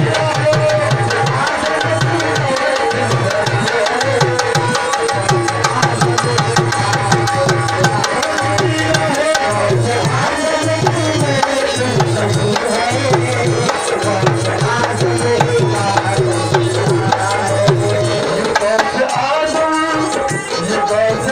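Qawwali music: a hand-drum beat under sustained melodic lines. The drumming stops about eighteen seconds in while the melody carries on.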